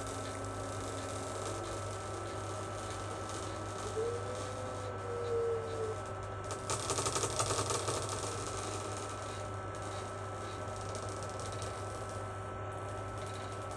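Steady electrical hum with a thin high whine over it; about seven seconds in, a short spell of rapid clicking.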